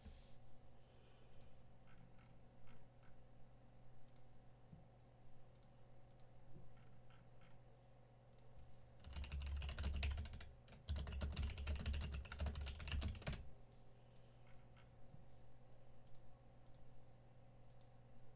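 Faint scattered clicks and taps like typing on a computer keyboard, with a dense run of clicking and thumping for about four seconds in the middle, over a steady low hum.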